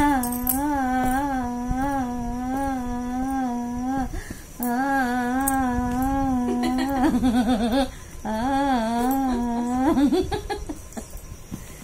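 A person humming a singsong rhyme tune on one steady pitch, with a small lilt about every half second, pausing briefly twice.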